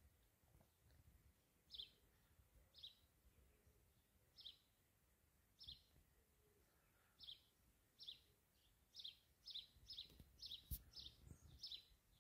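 Faint bird chirping: short high chirps, about one a second at first, then quicker, about two a second, in the last few seconds. A single sharp click sounds near the end.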